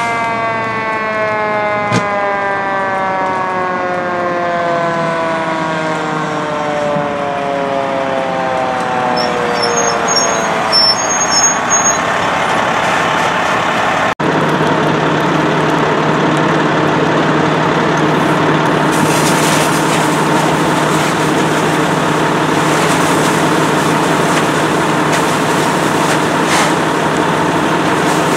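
Fire engine siren winding down, its pitch falling steadily over about ten seconds. After a cut about halfway through comes the engine's steady running with a low hum, joined later by a hiss that fits a hose spraying water onto the burning rubbish.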